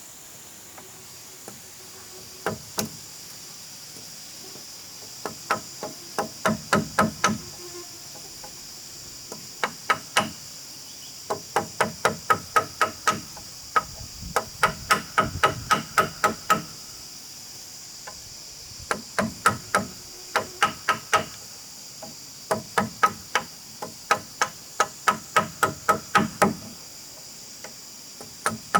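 Hammer blows on wood in quick runs of several strikes a second, each strike ringing briefly, with pauses between runs; insects buzz steadily throughout.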